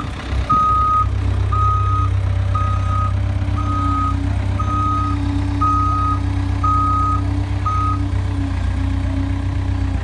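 2004 Caterpillar 257 rubber-track skid steer loader with its diesel engine running steadily. Its backup alarm beeps about once a second while it moves in reverse, then stops about eight seconds in.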